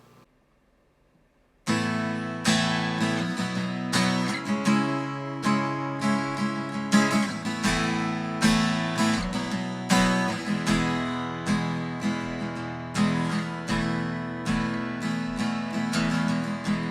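Strummed acoustic guitar playing a song's introduction, starting suddenly after a second and a half of near silence, with a steady rhythm of strokes.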